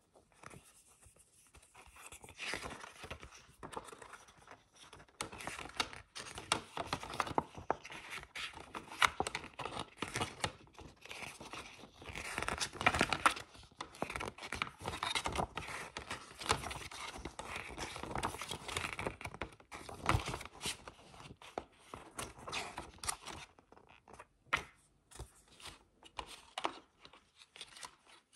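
Pages of a paper CD booklet being turned and handled: irregular rustling and scraping of paper, with scattered sharp ticks.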